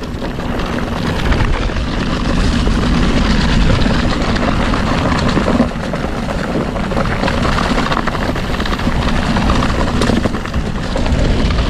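Mountain bike riding over a rough dirt trail: wind buffeting the microphone and tyres rattling and rumbling over the ground, steady and loud throughout.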